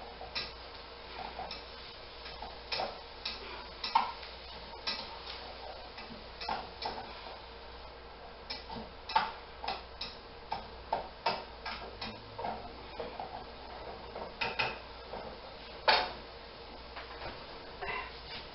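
Irregular light clicks and taps, dozens of them at uneven spacing, with two louder knocks about four seconds in and again near sixteen seconds, over a faint steady hum.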